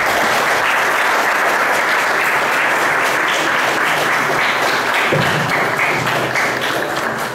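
Audience applauding, a steady dense clapping that begins to thin out near the end.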